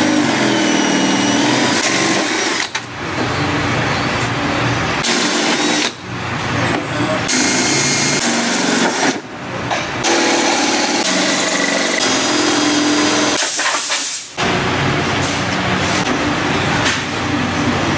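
Milwaukee M18 cordless drill with a step bit cutting through a truck's sheet-metal fender, running in several long runs broken by brief pauses.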